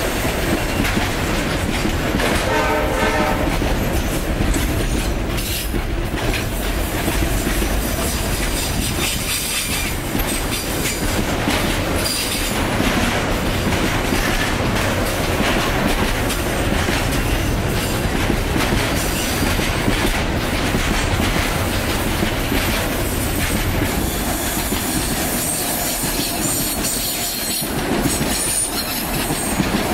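Freight wagons rolling past close by: a steady loud rumble of wheels on rail with a rhythmic clatter over the rail joints. A short pitched wail sounds about two to three seconds in.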